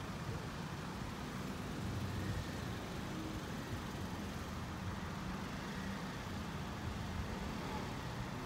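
Steady low rumble of road traffic at a busy level crossing, with no train passing and no alarm tone heard.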